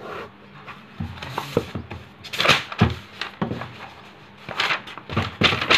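Notebook paper pages being turned and handled: a run of short crackling rustles and knocks from about a second in, loudest about halfway through and again near the end.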